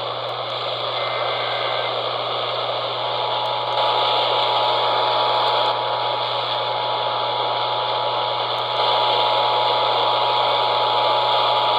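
AM radio broadcast heard through heavy static hiss and hum. About three seconds in, the Emergency Alert System two-tone attention signal comes in and holds steady under the static. It leads into an EAS Required Monthly Test.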